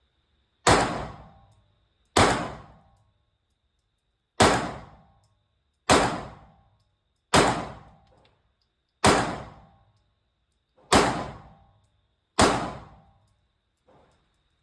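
Eight 9mm pistol shots from a Glock 19X fired at a slow, deliberate pace, about one every one and a half to two seconds. Each crack is followed by a short echo off the walls of the indoor range.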